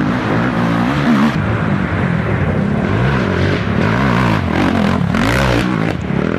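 Several racing ATV engines revving up and down at once, their pitches rising and falling across one another, with a brief dip in level near the end.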